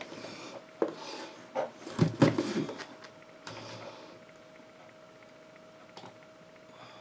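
A few knocks and soft thuds in a small room, the loudest cluster about two seconds in, over a faint steady hum.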